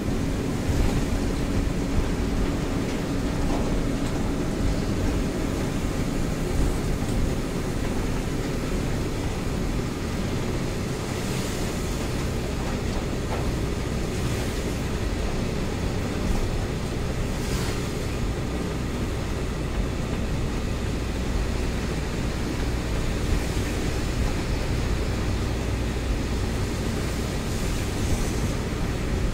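Steady engine and tyre noise of a Mitsubishi Fuso Fighter truck driving on a wet road, heard inside the cab. A low drone runs underneath throughout, with a mid-pitched tone in the first ten seconds that fades away.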